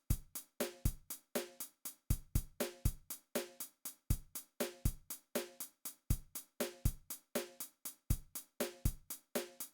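Drum beat of kick, snare and hi-hat hits in a steady repeating pattern, with no bass guitar or other sustained notes between the hits.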